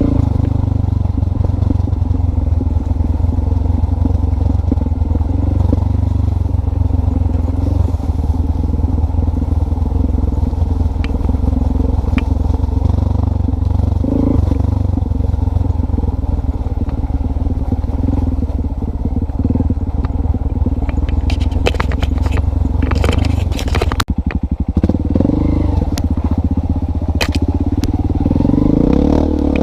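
An engine running steadily, with a cluster of clicks and rattles about three-quarters of the way through.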